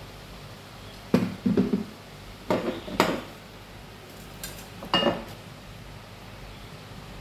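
Kitchenware clattering: dishes and utensils knocking and clinking against each other in a few short clusters.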